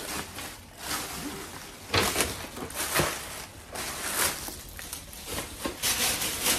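Thin plastic shopping bag crinkling and rustling in a run of bursts as it is handled and rummaged through.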